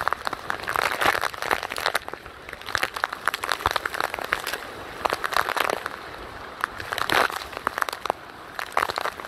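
Heavy hurricane rain pelting the plastic case around the phone, a dense run of crackling taps over a steady rain wash. The rain swells louder every second or two as the gusts drive it.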